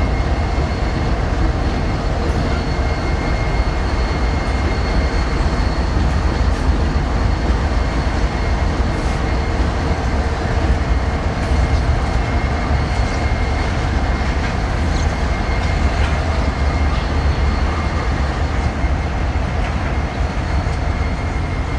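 Freight train locomotives, among them a GE ES44AC diesel-electric, passing with a steady heavy rumble and a thin high whine running through it.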